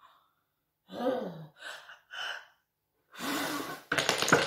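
A woman huffing and puffing: a voiced gasp, short puffs of breath, then a long hard blow. Near the end, small wooden sticks from a toy house clatter down onto a wooden box and the floor.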